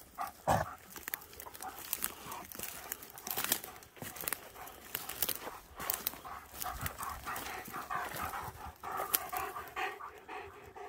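A German shepherd panting close by, over a run of short crackles and clicks like footsteps breaking dry twigs and conifer brash.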